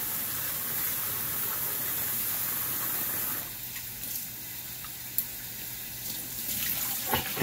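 Kitchen faucet running into a stainless steel pot as jasmine rice is rinsed in it by hand. The water sound gets quieter about halfway through, and the rinse water is poured off into the sink, with a few splashes near the end.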